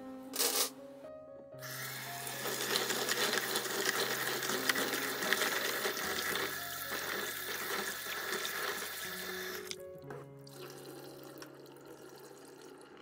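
Kitchen tap water running and splashing into a plastic basin of date seeds being rinsed, over background music with steady tones. A brief burst of noise comes about half a second in, the water starts about a second and a half in, and it stops about ten seconds in.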